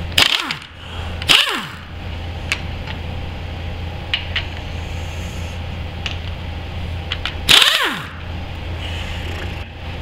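Camera handling noise: three loud brushing swishes as the camera is gripped and repositioned, with a few light clicks between them, over a steady low hum in the shop.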